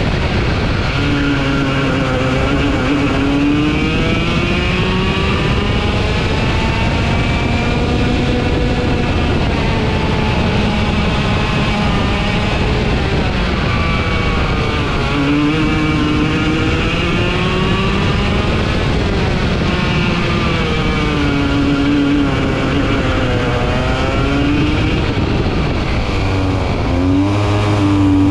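Racing kart engine heard from onboard, its pitch climbing as it accelerates and dropping as it slows, over and over, lap after lap of corners. A steady rushing noise runs underneath.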